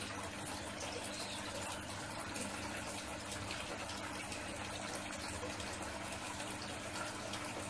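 Steady running water, an even splashing rush that does not change, with a faint low hum underneath.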